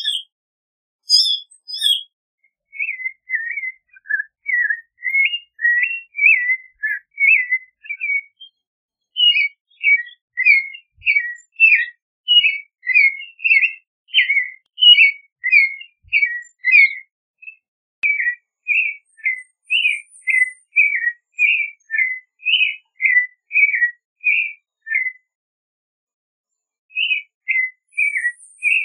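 Clay-colored thrush singing: a long run of short, quick whistled notes in varied phrases, with two higher, sharper notes at the very start and a short pause near the end before the song picks up again.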